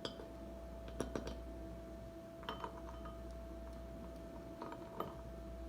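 A few faint clinks and taps of glassware as the jar and the plate on top of it are handled: one about a second in, another two and a half seconds in, and one near the end.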